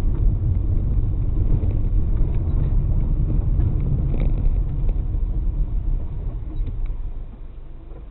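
Low rumble of a car driving, heard from inside the car, dying down over the last couple of seconds.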